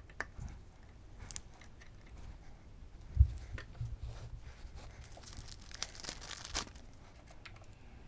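Workshop handling noises from work on the motorcycle engine: scattered small clicks and taps, a dull thump about three seconds in, and a rustling, scraping stretch from about five to six and a half seconds.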